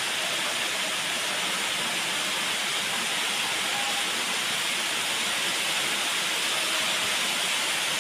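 Aquarium filter running, water splashing into the tank in a steady, even hiss.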